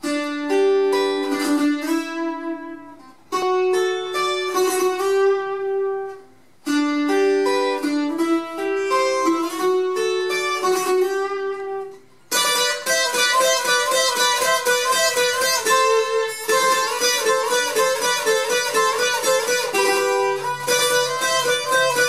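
Colombian requinto, a small guitar strung in triple courses, playing a carranguera melody: three short picked phrases that each ring out and fade, then from about twelve seconds in a fast, unbroken run of picked notes.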